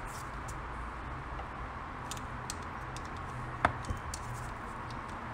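Small clicks and taps of hand tools and engine parts being handled during assembly, with one sharper click a little past halfway and a smaller one just after, over a steady background hiss.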